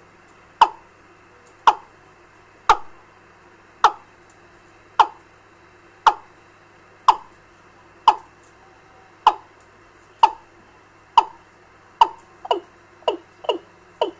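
A recorded fowl ('gà') lure call played through a bird-trapping amplifier's loudspeaker. It is a sharp, downward-sliding note repeated about once a second, and the notes quicken to two or three a second near the end.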